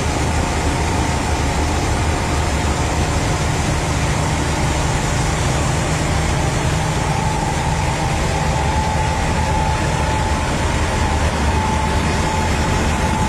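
Combine harvester running while its unloading auger pours wheat grain into a tractor trolley: a steady machine drone with a constant whine over it.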